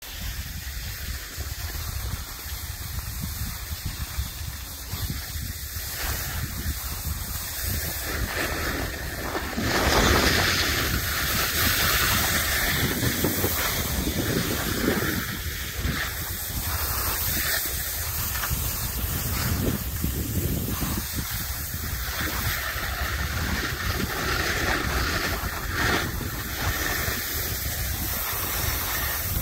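Wind rushing and buffeting the microphone, a continuous noisy rush with a fluctuating low rumble that grows louder about ten seconds in.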